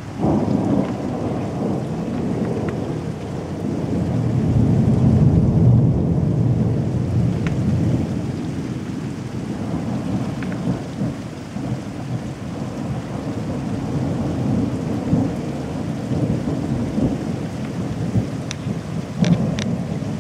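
Thunder rumbling, starting suddenly and swelling to its loudest about five seconds in, then rolling on at a lower level, with rain falling.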